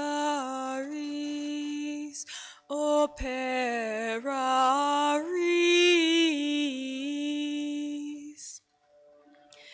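Slow medieval chant melody from a woman's voice with a bowed medieval fiddle, one flowing line moving in small steps. It breaks off briefly about two seconds in and stops over a second before the end.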